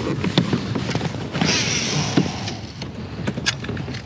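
A kayak angler handling a baitcasting rod and reel in a plastic kayak: scattered knocks and clicks over a low rumble, with about a second of hissing rush roughly halfway through.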